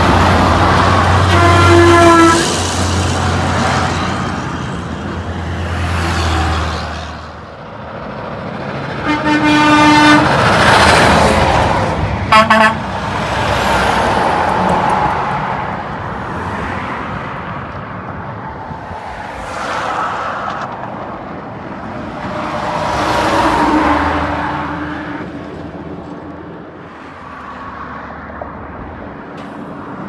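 Big trucks passing close at highway speed, their engine and tyre noise swelling and fading, with truck horn blasts: a short one about two seconds in, a longer one around nine to ten seconds, and two quick sharp toots just after twelve seconds.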